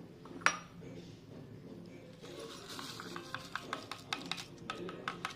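Kitchenware being handled: one sharp click about half a second in, then a run of quick light clicks and taps, several a second, from about two seconds in, like a spoon knocking against a cup while a drink is mixed.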